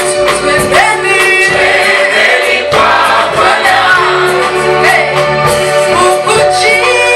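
Choir singing a Swahili gospel song over instrumental backing with a steady beat.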